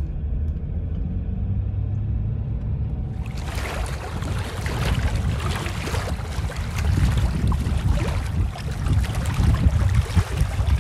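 Car on the move: a steady, loud, low rumble of engine and road noise. About three seconds in, a rough hiss joins it and stays to the end.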